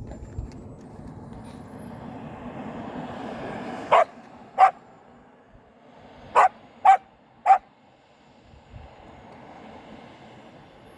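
A dog barks five times, sharp and loud, between about four and seven and a half seconds in. Under the barks is the thin, very high whine of the model jet's KingTech turbine, rising at the start and easing off near the end. A rushing noise builds over the first four seconds and then drops away.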